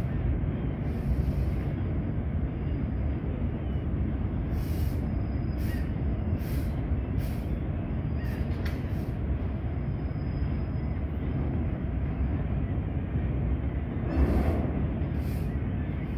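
Steady low rumble of a heavy freight train, hauled by two Class 60 diesel-electric locomotives, crossing a steel rail bridge. Brief high hisses come through several times, with a swell in the rumble near the end.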